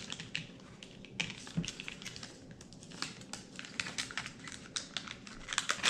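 Rapid, irregular light clicks and crinkles from plastic lure packaging being handled close to the microphone.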